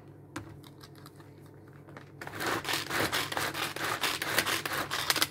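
Small hand pull-cord chopper, with a few light clicks as it is handled, then, from about two seconds in, the cord pulled over and over in quick rasping strokes while the blades spin and chop the shallots inside.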